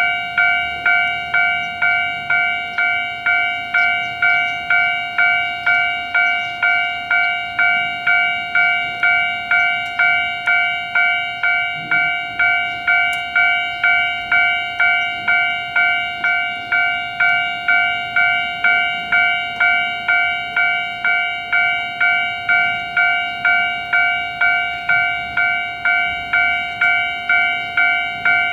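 Japanese railway level-crossing alarm ringing its steady "kan-kan" warning: evenly spaced metallic clangs, a little under two a second, without a break.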